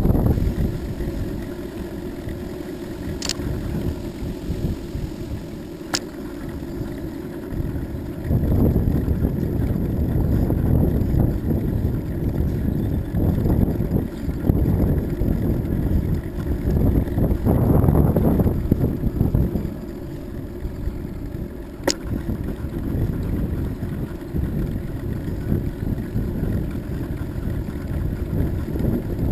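Wind rushing over the microphone of a camera on a moving bicycle, a low rumble that swells and fades, with three faint ticks.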